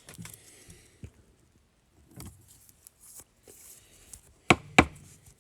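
Trading cards being handled and shuffled by hand, light clicks and rustles of card stock, with two sharp knocks on a hard surface close together near the end.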